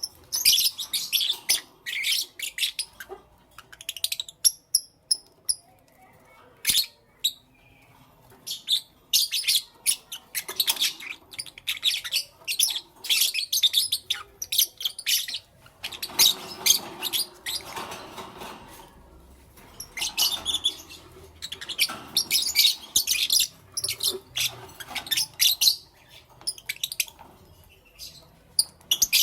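Lovebirds chirping: clusters of rapid, short, high-pitched chirps broken by brief pauses, with a softer, lower noise for a few seconds about halfway through.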